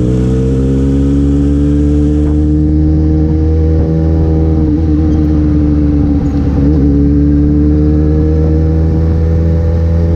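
Yamaha XJ6's 600 cc inline-four engine running under way, heard from the rider's seat. Its pitch climbs slightly at first, dips briefly around the middle, then climbs slowly again toward the end.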